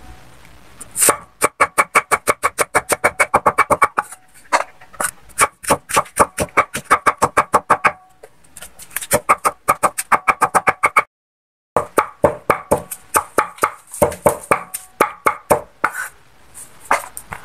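Cleaver chopping banana pith on a wooden chopping block in rapid strokes, about six a second, each with a short metallic ring from the blade. The chopping stops briefly a few times and starts again.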